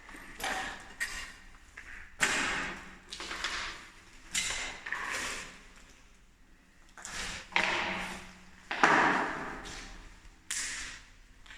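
Irregular steps scuffing and crunching over grit, about one a second, each trailing off in the echo of an enclosed air raid shelter.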